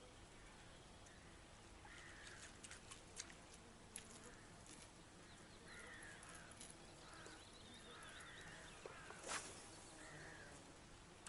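Faint crow cawing, one short harsh call every second or two. A few small clicks, then one louder sharp crack about nine seconds in.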